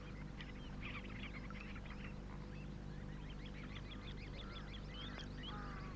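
A flock of greater flamingos calling: many short, overlapping calls over a low steady hum.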